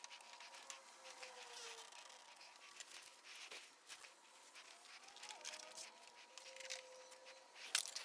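Faint rustling and small clicks of handling as the oil extractor's thin plastic suction tube is drawn out of the engine's dipstick tube, with one sharp click near the end.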